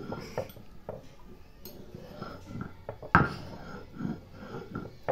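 Stone pestle (batta) knocking and scraping on a flat stone grinding slab (sil) as green chilli and garlic are crushed: irregular knocks, the loudest about three seconds in.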